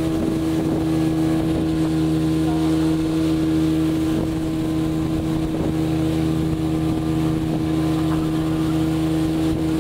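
Small motorboat's engine running at a steady, unchanging pitch while the boat travels at speed.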